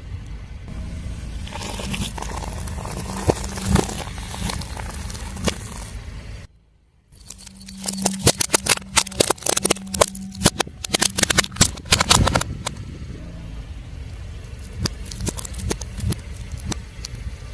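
Car tyre rolling slowly over brittle objects and crushing them: rapid crackling and snapping over the car's low engine hum. The crackle is densest in the second half, after a brief cut to silence.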